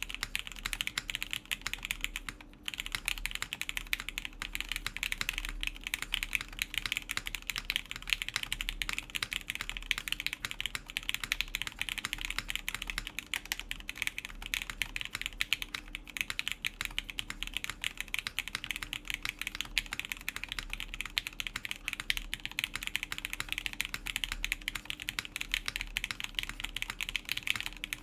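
Fast continuous typing on an Etar87 mechanical keyboard in top-mount configuration, with lubed Gateron Yellow linear switches (milky tops, 65 g springs) in a full aluminium plate. The rapid keystrokes start abruptly, with a brief pause about two and a half seconds in.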